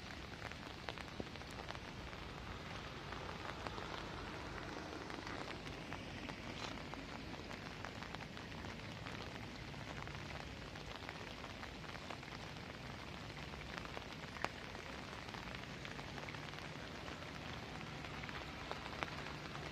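Steady rain falling, with many scattered drop ticks and a few sharper ones, over a faint low hum that comes and goes.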